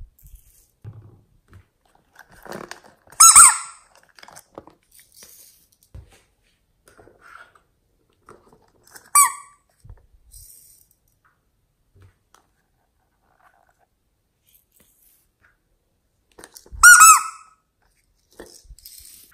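Three sharp plastic squeaks as small clear plastic cups of glitter and sequins are handled and tipped, one about three seconds in, one about nine seconds in and one near the end, with faint rustling and small taps of sequins and beads between them.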